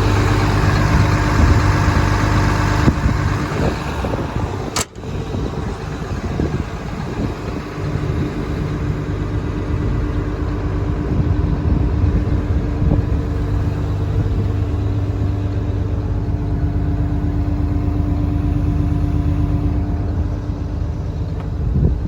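Komatsu PC300LC-8 excavator's six-cylinder turbo-diesel engine running steadily, with a brief dropout about five seconds in; the engine sounds good.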